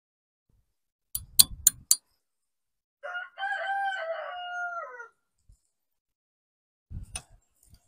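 Four sharp knocks in quick succession about a second in, then a rooster crowing once for about two seconds, and one more knock near the end.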